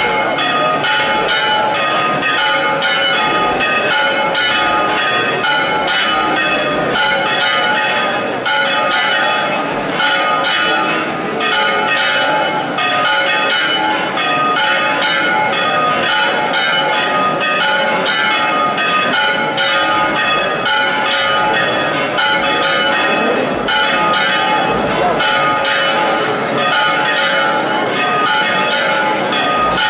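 Several church bells ringing together in a rapid, continuous peal, strikes crowding one on another without a break.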